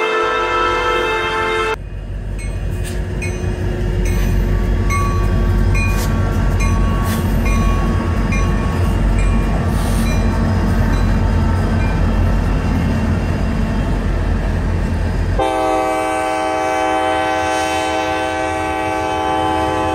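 Freight train diesel locomotives passing close by: a steady, loud engine rumble with wheels on the rails and evenly spaced clicks. About 15 seconds in, a train horn sounds one long chord of several tones for about four seconds.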